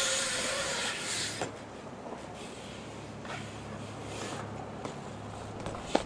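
BMX bike tyres on a concrete skatepark: a hiss of rolling tyres for about the first second, then quieter rolling with a few light clicks and a sharp knock near the end.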